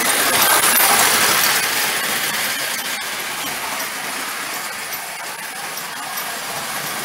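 Marx No. 994 clockwork wind-up toy locomotive running on tinplate O-27 track, pulling a few cars: a steady whirring rattle of the spring motor and wheels. It is loudest about a second in and eases off a little after.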